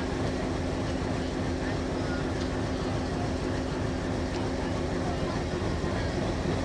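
ALCO-built WDM-3A diesel locomotive's 16-cylinder engine running steadily at low power, a constant drone with a held hum, as the locomotive creeps up to its coaches for coupling.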